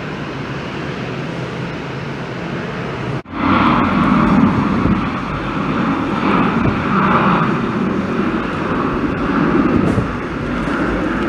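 Jet airliner engine noise, a steady roar of noise. It cuts out abruptly about three seconds in and comes back louder, swelling and fading in waves.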